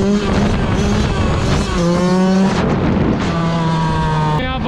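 Yamaha YZ125 single-cylinder two-stroke dirt bike engine running hard while being ridden. The engine pitch holds, steps down at about two seconds and again past three seconds, then jumps up near the end as the revs change. The engine has just been tuned and sounds crisp.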